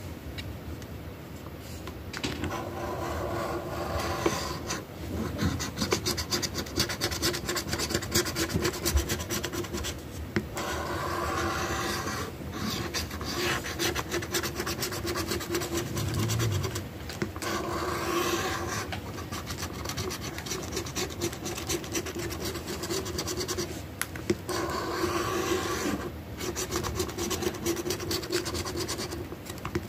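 Scratch-off lottery ticket being scratched: rapid rasping strokes in long runs, broken by several short pauses.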